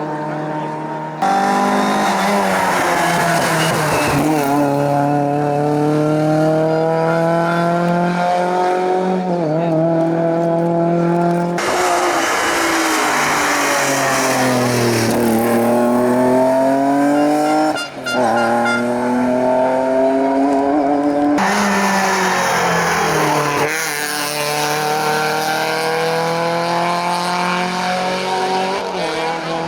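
Race car engines at full throttle on a hillclimb, the note rising with each gear and dropping at the shifts and braking, with tyre squeal. The sound cuts abruptly to a different car about a second in, again about twelve seconds in and about twenty-one seconds in.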